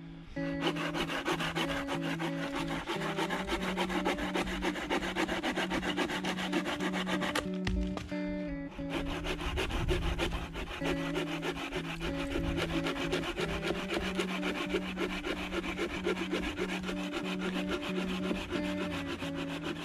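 Hand saw cutting through a dead branch laid across a stump, in quick, even strokes, with a short pause about halfway. Background music plays underneath.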